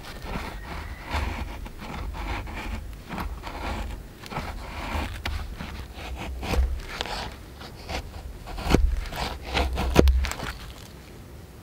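Knife blade shaving thin curls off a wooden stick to make a feather stick, in quick repeated scraping strokes. Two louder knocks come near the end.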